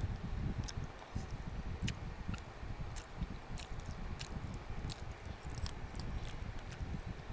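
Eating close to the microphone: chewing and wet mouth sounds, with irregular small clicks over a low rumble.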